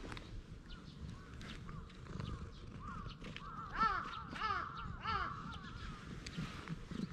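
A bird calling in a quick series of about seven short, arched calls, from about three seconds in until about five and a half seconds in.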